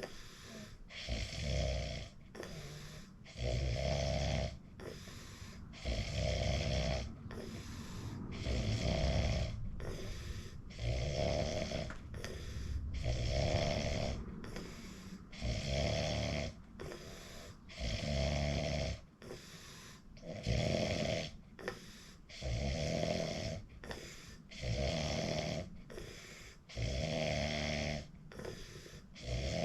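A sleeping person snoring loudly and regularly, a rasping snore every two to three seconds with quieter breathing in between.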